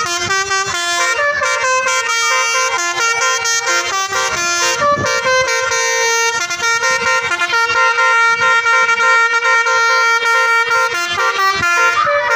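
Bus 'telolet' horn, a multi-note musical air horn, playing a running melody: quick stepped notes, with some notes held for a second or more.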